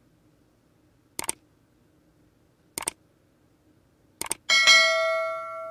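Subscribe-animation sound effects: three quick double mouse clicks about a second and a half apart, then a bell ding with bright overtones that rings out and fades over about a second.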